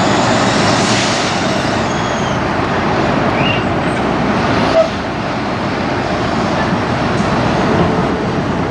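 Semi-truck tractor-trailers moving slowly across a yard: diesel engines running and tyres and trailers rolling on pavement. A faint high squeal stops about two seconds in, and there is one short knock near the middle.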